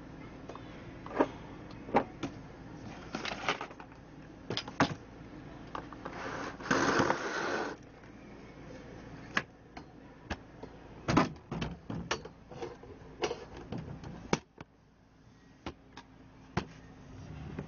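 Cast-resin orgonite pieces being handled: a scattered series of sharp clicks and knocks as they are picked up and set down on cardboard, with a rustle lasting about a second around seven seconds in.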